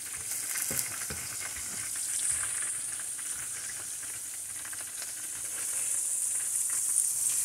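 Potato sticks frying in hot oil in a nonstick pan: a steady high sizzle with scattered small crackles, a little louder near the end. A slotted spatula turns them, with a few soft scrapes and taps in the first couple of seconds.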